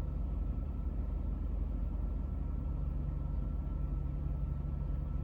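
Jeep Wrangler JK V6 engine idling steadily.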